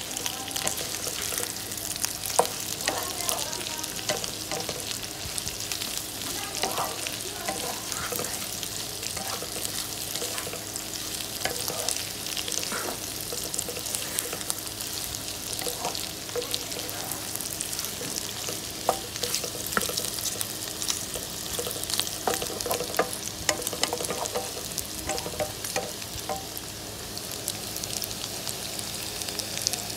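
Pork pieces and potatoes dry-frying in their own rendered fat in a nonstick pan, sizzling and crackling steadily. A wooden spatula stirs and scrapes them against the pan now and then.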